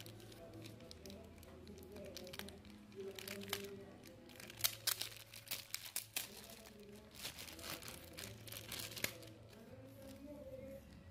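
Clear plastic packaging bag crinkling as hands work it open and draw out a coiled cable, a run of sharp irregular crackles that is densest and loudest from about four to nine seconds in.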